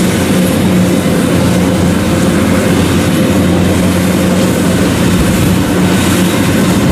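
WD115 rice combine harvester's engine and machinery running steadily while it cuts rice in a muddy paddy, a loud, even hum with no change in pitch.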